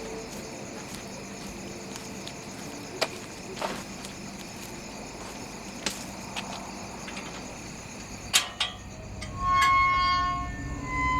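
Horror film soundtrack: a quiet, steady ambient bed with a few scattered sharp clicks. About nine seconds in comes a loud held pitched tone lasting about a second, then a second, shorter tone.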